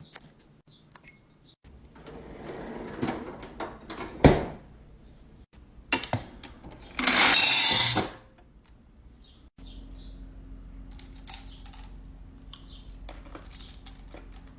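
Food containers and packaging being handled and set into a refrigerator: plastic rustling, clicks and knocks, one sharp knock about four seconds in, and a loud hissing or rushing burst lasting about a second a little past halfway. A steady low hum starts in the last third, with light clicks over it.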